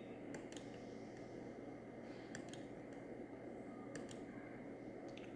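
Faint clicking at a computer: four quick double clicks, spread about a second and a half apart, over low room tone with a steady hum.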